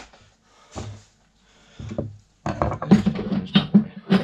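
A couple of knocks as metal fan parts are handled, then from about two and a half seconds a fast, continuous mechanical clicking over a low steady hum, like a ratcheting tool or motor-driven mechanism at work.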